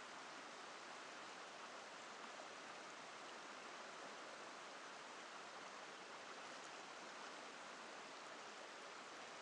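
Faint, steady rush of a shallow river flowing over a stony bed.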